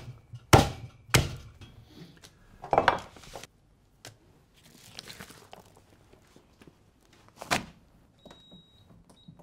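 Butcher's cleaver chopping meat and bone on a chopping block: a handful of heavy single chops spaced a second or more apart, with a short high beep near the end.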